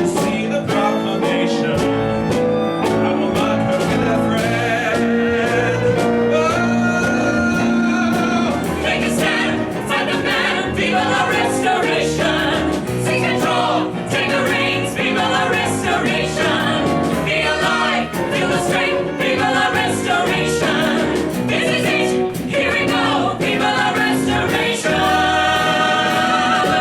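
Live band of piano, electric guitar, bass, violin and drums playing a musical-theatre song, with a group of singers. The song builds to a held final chord near the end.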